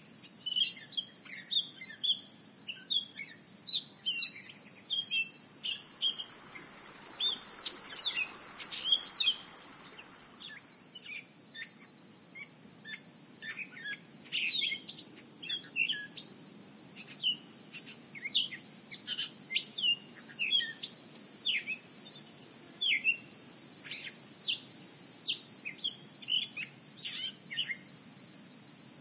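Songbirds chirping and calling in quick, short notes throughout, over a steady high-pitched insect drone.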